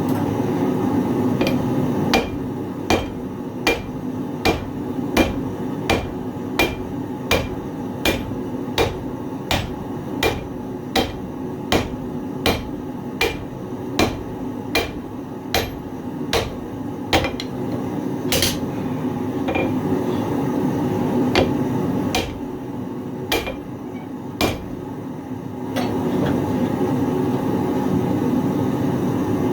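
Hand hammer striking hot 1095 carbon steel plate on an anvil in a steady rhythm of about three blows every two seconds, each blow with a light ring, over a steady rushing noise. The blows stop near the end.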